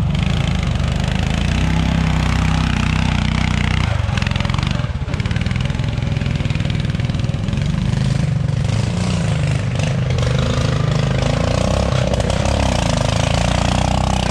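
Modified Wheel Horse garden tractors' small engines running hard on a steep hill climb, the engine note rising and falling several times as the throttle and load change.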